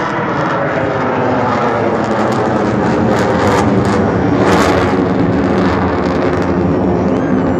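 Jet aircraft flying in a tight four-ship formation overhead: loud, steady jet engine noise that swells a little past the middle, with some crackle.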